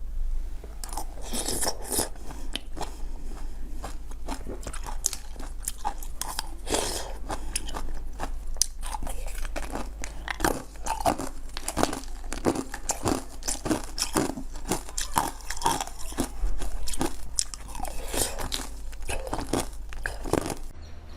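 Close-miked eating: a person biting and chewing crunchy food, many irregular crisp crunches one after another.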